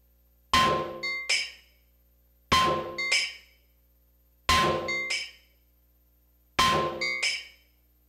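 Hammer striking an anvil in a slow, even rhythm: four heavy ringing blows about two seconds apart, each followed by a lighter second strike.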